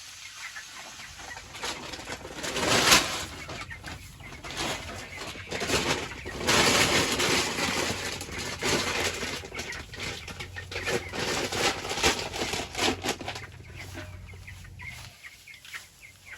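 Young meat chickens clucking and flapping their wings, with repeated loud bursts of noise, the loudest about three seconds in. A low steady hum starts about a second in and stops shortly before the end.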